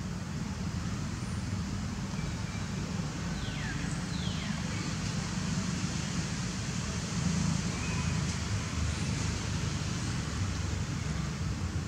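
Steady low rumble and hiss of outdoor background noise, with two faint falling calls about three and four seconds in and a few faint short high chirps.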